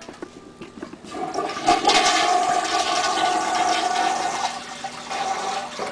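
Toilet flushing: a few light knocks, then water rushing loudly for about three seconds with a steady whistling tone over it, dying away near the end.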